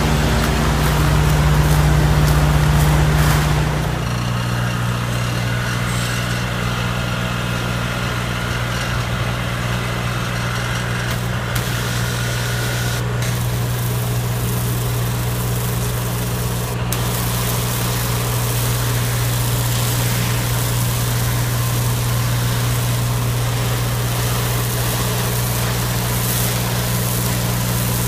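The Kubota diesel engine of a Madvac CN100 compact sweeper running steadily. About four seconds in, it drops in pitch and level to a lower speed. In the later part, the hiss of its pressure-wash wand spraying concrete sits on top.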